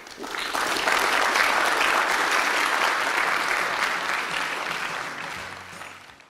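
Audience applauding, swelling within the first second, holding steady, then fading away near the end.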